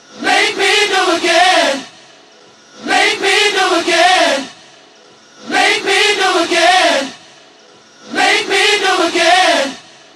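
A chanted vocal phrase repeated four times, one about every two and a half seconds with short pauses between. Each phrase rises and then falls in pitch with a wavering tone.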